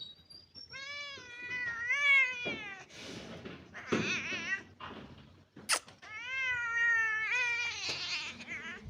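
Angry domestic cat yowling: two long, drawn-out calls with a wavering pitch, and a rougher, noisier cry between them. A sharp click comes a little past the middle.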